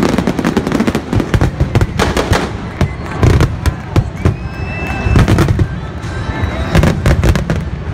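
Stadium pyrotechnics going off: a rapid, uneven string of sharp firework bangs and crackles, with heavier booms about three and five seconds in.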